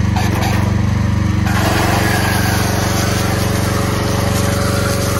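A small engine running steadily, as on a pressure washer, and about one and a half seconds in the hiss of a foam cannon spraying soap onto the engine bay starts and carries on.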